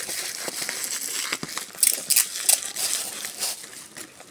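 Plastic shopping bags crinkling as they are crumpled and stuffed into a taped paper squishy as its filling: an irregular rustle with sharp crackles.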